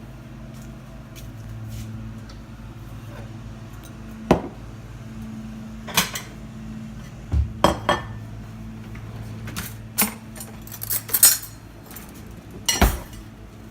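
Dishes and cutlery clinking and knocking as breakfast things are handled, a scattering of separate sharp clinks from about four seconds in, the loudest near the end. A steady low hum runs underneath.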